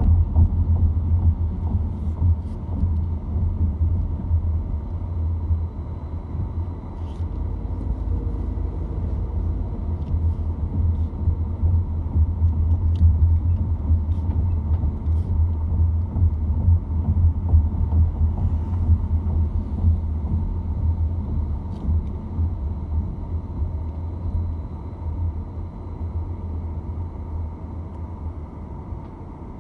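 Steady low rumble of a car driving, heard from inside the cabin: engine and road noise, easing off over the last few seconds as the car slows.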